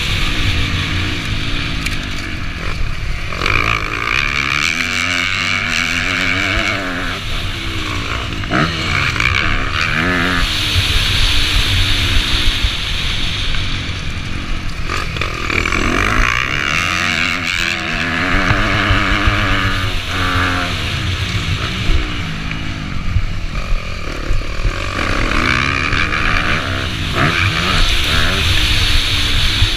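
Dirt bike engine ridden hard, its revs rising and falling again and again through the gears, with wind rushing over a helmet-mounted microphone.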